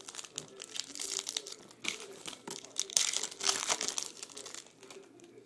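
A shiny foil trading-card pack wrapper being torn open and crinkled in the hands, a rapid irregular crackling that is loudest about three seconds in and dies away near the end.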